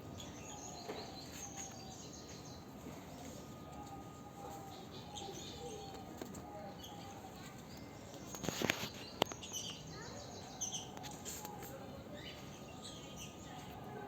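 Several birds chirping and twittering in short repeated calls, with a few sharp knocks or clicks about two-thirds of the way through.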